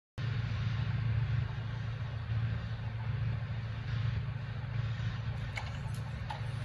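Steady low rumble of outdoor background noise. Near the end, a few short clicks as a metal-framed glass entrance door is pushed open.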